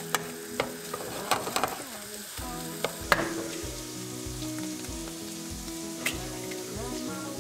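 Guanciale strips sizzling in a pot while a wooden spoon stirs them, with several sharp knocks of the spoon against the pot in the first three seconds. Background music with a steady bass pulse plays throughout.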